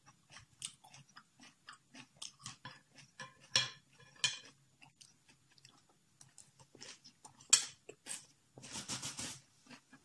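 Close-up chewing of crunchy vegetables, pointed cabbage and bean sprouts, with irregular crunches and mouth clicks. A denser, noisier stretch of about a second comes near the end.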